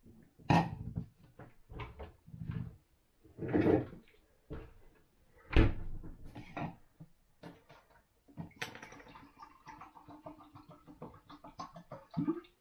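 Glasses and a plastic soda bottle handled on a kitchen counter: a string of knocks and clinks as they are picked up and set down, the loudest about halfway through, then about four seconds of denser small clicks and rustling near the end.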